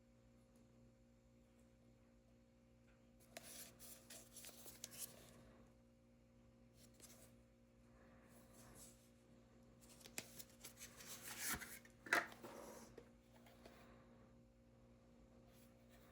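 Faint handling noises of a lighter being unpacked: soft rustling of packaging in several short bouts with a few small clicks, the loudest rustle near the end, over a low steady hum.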